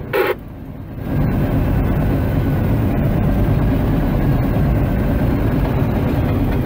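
Bulldozer diesel engine heard from inside the cab, jumping much louder about a second in and then running steadily with a deep drone.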